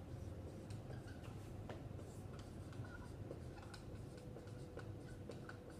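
Handwriting: a pen scratching and tapping in short, irregular strokes with faint squeaks, as a term is written out.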